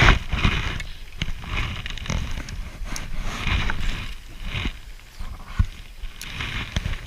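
Wind buffeting the microphone, with scattered light knocks and clicks.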